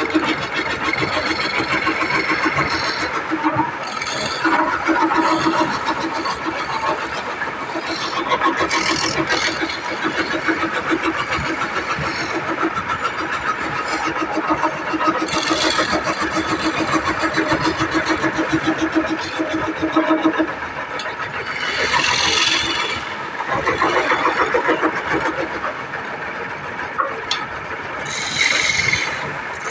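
Wood lathe running as a hand chisel cuts and scrapes a spinning wooden spindle: a steady motor hum under a rasping cutting noise, with louder hissing cuts twice near the end.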